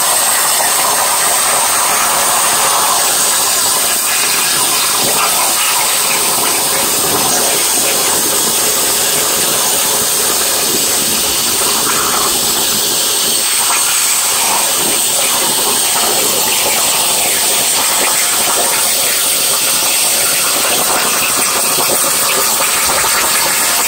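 Plasma torch on a CNC table cutting 18-gauge sheet steel at 70 inches per minute: a steady, loud hiss of the cutting arc and its air jet.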